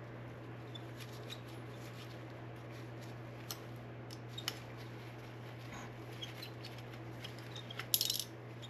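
Faint clicks and taps of small parts being handled, most likely the light/laser unit being fitted to the handguard's M-LOK slots, over a steady low hum. A short rattling, scratchy burst comes near the end.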